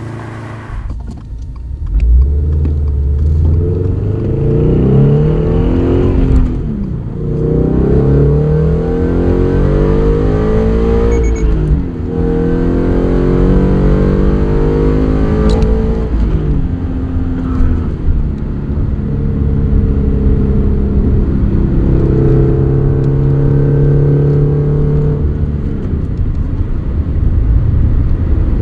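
Interior sound of a 2023 Subaru BRZ's 2.4-litre flat-four, breathing through a catless unequal-length header and HKS Hi Power single-exit catback, in a hard pull toward redline. The revs climb and drop at gear changes about six, twelve and sixteen seconds in, then hold a steadier, slowly rising drone.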